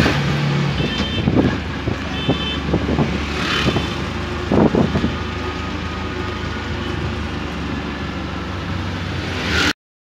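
Road traffic noise: a steady engine hum with passing vehicles and a few short, high beeps in the first few seconds. The sound cuts off suddenly near the end.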